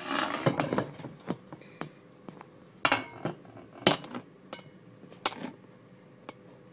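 A short stretch of rubbing handling noise, then a string of separate sharp knocks and clinks of hard kitchenware on a sink counter, the loudest near the middle.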